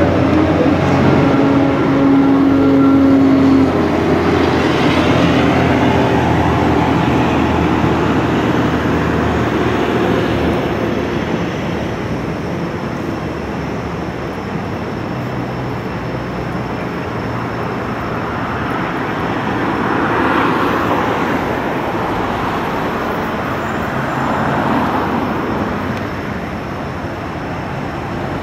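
Road traffic. In the first few seconds a passing amphibious tour vehicle's engine drones loudly with a steady pitch. After that comes a steady traffic wash, with other vehicles passing about twenty and twenty-five seconds in.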